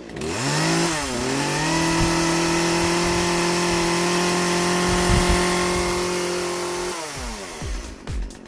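A motor-like hum that rises in pitch, holds one steady pitch for about six seconds, then winds down near the end.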